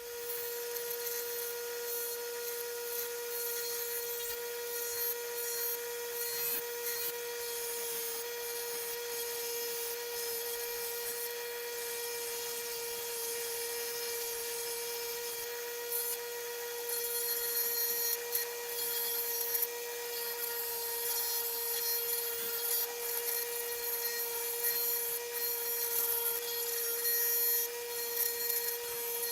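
Power grinder running steadily while it grinds a wooden knife handle to shape: a constant motor whine under a gritty rasp of wood on the abrasive, which comes and goes as the handle is pressed on.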